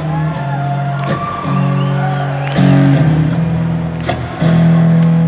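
Rock band playing an instrumental passage between sung lines: held bass and keyboard chords under electric guitar lines, with a drum and cymbal hit about every second and a half. Recorded from the audience in a large amphitheatre.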